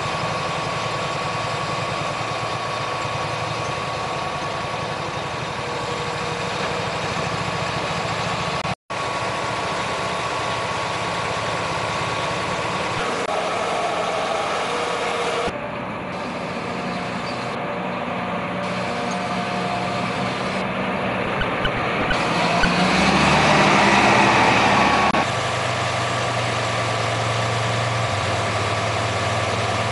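Tractor and ATV engines running steadily, with a louder stretch about three-quarters of the way through. The sound cuts out for a moment about nine seconds in.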